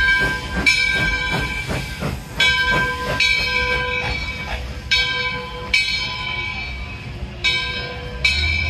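Steam locomotive's bell ringing: sharp clangs at about one a second, unevenly spaced, each ring lingering into the next, over the low rumble of the moving train.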